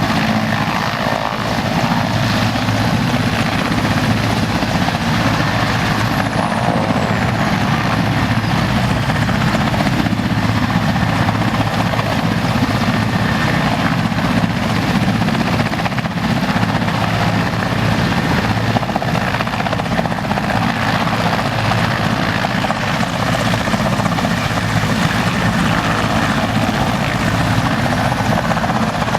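Military helicopter running, loud and steady.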